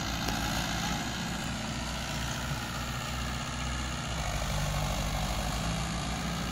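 Mahindra 595 DI Turbo tractor's four-cylinder turbo diesel engine running steadily under load, pulling an 11-tine cultivator through deep tillage in low gear.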